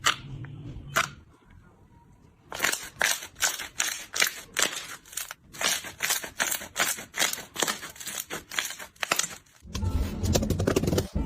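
Slime being pressed and poked by hand, giving a run of sharp crackling clicks, about three to four a second, from a couple of seconds in. Near the end a louder, deeper sound takes over.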